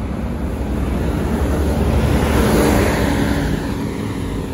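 An intercity coach bus driving past at road speed. Its engine and tyre noise build to a peak about halfway through, then fade as it moves away.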